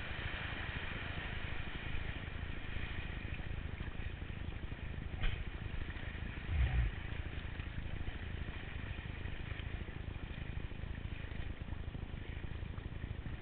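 Steady wind buffeting on a helmet camera's microphone, mixed with water rushing under an inflatable tube being towed across a lake. There is a short sharp knock about five seconds in and a dull thump about a second and a half later.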